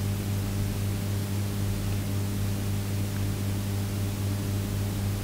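Steady low electrical hum, pitched near 100 and 200 Hz, with a layer of hiss from an open microphone and amplifier line.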